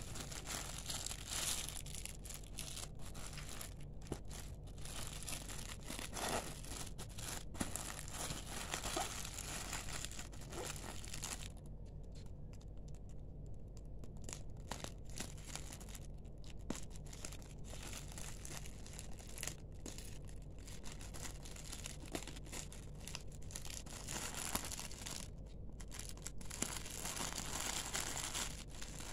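Black plastic wrapping on a parcel crinkling and tearing as hands handle it and cut it open with scissors, in irregular stretches with short pauses.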